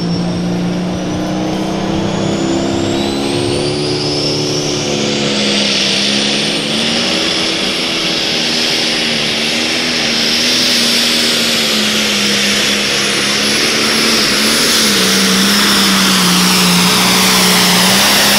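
John Deere super stock pulling tractor's turbocharged diesel engine running under full load as it pulls the sled. A high whine climbs in pitch over the first several seconds and then holds steady, while the engine note stays fairly even and the overall sound grows slightly louder toward the end.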